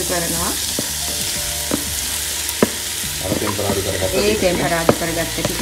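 Onions and green chillies sizzling in hot oil in a clay pot as seasoned soya meat chunks are scraped in from a clay bowl with a wooden spoon. A few sharp knocks of the spoon against the clay come through.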